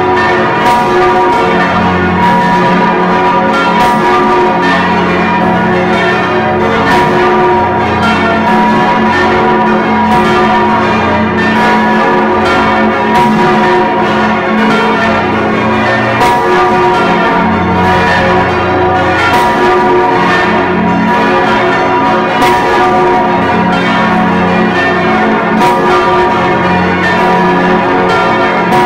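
Swinging bronze church bells ringing in full peal, heard from right beside the large Stephanus bell in the bell frame: a dense, irregular run of overlapping strokes over a continuous hum of ringing tones. The recording is made through sound damping.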